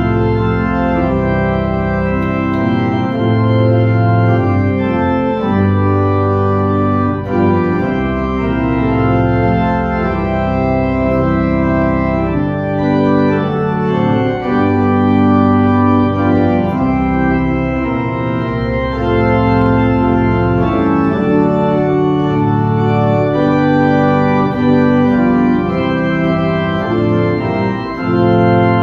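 Church organ playing sustained chords, with deep pedal bass notes that come in and drop out several times.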